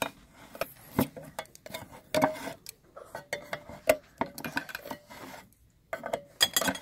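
Handheld can opener cutting around the rim of a steel can: irregular metallic clicks and short crunching scrapes as the key is turned, with a brief pause a little after five seconds in.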